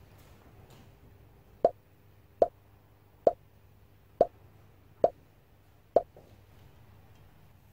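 Six short, identical pops, evenly spaced a little under a second apart, over a faint steady room hum: an edited-in pop sound effect.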